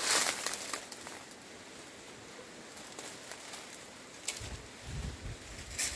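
Faint outdoor rustling and crackling, strongest in the first second, with a brief low rumble about four and a half seconds in and a short crackle near the end.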